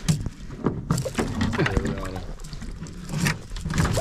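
Water splashing and sloshing beside a canoe as a hooked bass thrashes at the surface while being landed, with scattered sharp knocks and clicks and a brief voice sound midway.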